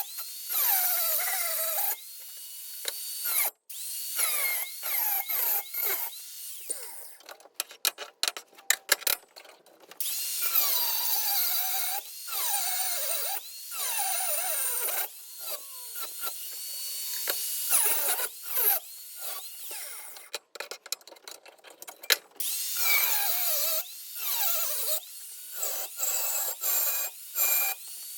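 A power tool cutting knife blanks out of steel clamped in a vise. Its whine repeatedly slides down in pitch and stops abruptly, in many short stretches.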